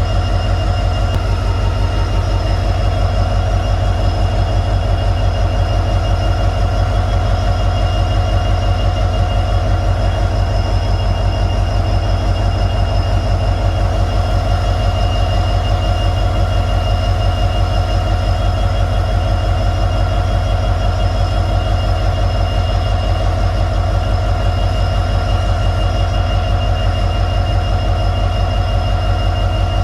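EMD WDP4 diesel-electric locomotive's two-stroke V16 engine running steadily, giving the typical EMD hum. A fast low throb sits under a steady high whine.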